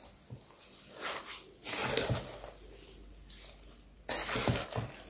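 Wooden spatula stirring a wet mix of minced tomato, chopped vegetables and coarse salt in a pot, in irregular strokes, two louder ones about two seconds in and near the end.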